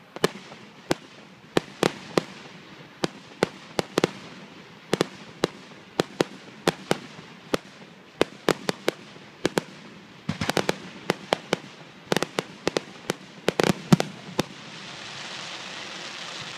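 Aerial firework shells bursting in an irregular string of sharp bangs and pops, some in quick clusters, with a steady hiss coming in near the end.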